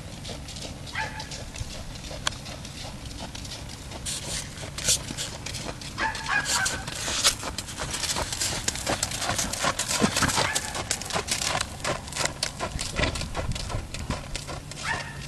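Mule's hooves striking sand-and-gravel arena footing at a jog: a run of crunching hoofbeats that grows louder about a third of the way in and is loudest around the middle, as the mule passes close.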